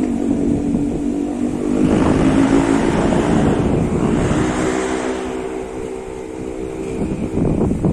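Steady engine hum mixed with wind rumbling on the microphone.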